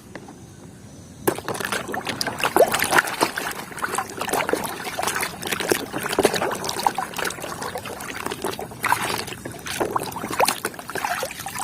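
Water splashing and trickling as a plastic toy is rinsed by hand, with many small knocks and drips. It starts suddenly about a second in, after a brief quiet moment.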